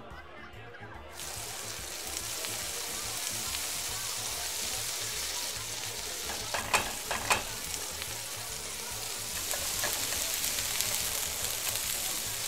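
Pan of sausage and tomato pasta sauce sizzling on high heat, a steady frying hiss that starts suddenly about a second in. Two sharp knocks come a little past halfway, the loudest sounds here.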